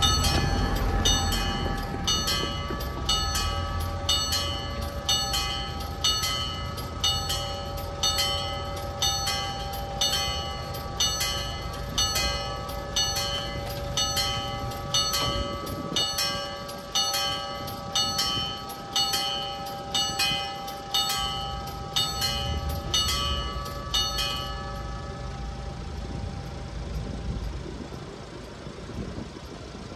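Level crossing warning bell ringing in a steady rhythm of about two strokes a second while the barriers come down. It stops about 24 seconds in, once the barriers are down, leaving the low rumble of road traffic.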